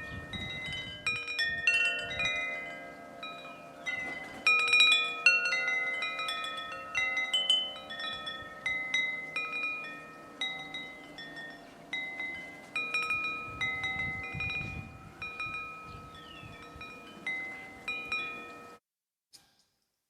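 Wind chimes ringing: a loose, irregular scatter of struck metal notes at several pitches, each ringing on and overlapping the next. They cut off suddenly near the end.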